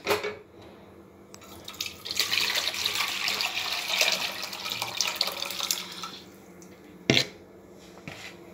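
Tamarind water with chopped tomatoes, coriander and green chili poured from a bowl into an empty nonstick kadhai, splashing for about four seconds. A single sharp knock comes near the end.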